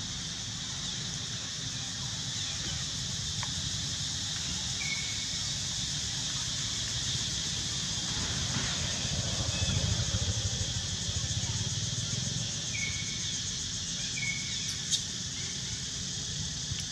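Outdoor ambience: a steady high-pitched hiss and a low rumble throughout, with a few short high chirps and one sharp click near the end.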